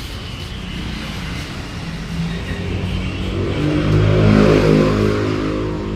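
A motor vehicle's engine running, growing louder from about halfway through as if revved or coming closer, then easing off near the end.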